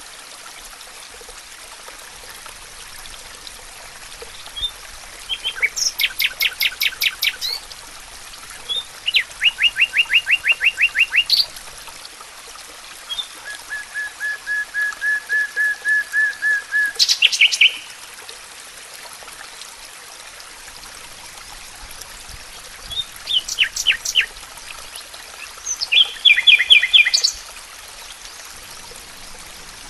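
A songbird singing in phrases of rapidly repeated notes, about five phrases of two to four seconds each, a few seconds apart, over a steady background hiss.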